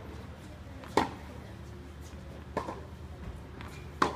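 Tennis rally: a tennis ball hit with rackets, three sharp pops about a second and a half apart, the first and last louder than the middle one.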